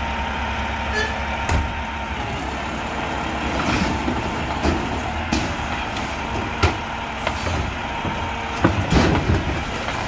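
Automated side-loader garbage truck running with a steady low engine drone while its lift arm raises a wheeled trash cart, tips it over the hopper and sets it back down. A series of sharp bangs and clatters comes from the cart and its load, the loudest about two-thirds of the way in and again shortly before the end.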